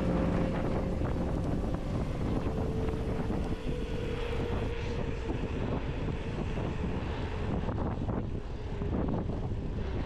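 Wind buffeting the microphone: a steady low rumble, with the end of a piece of music fading out in the first moment.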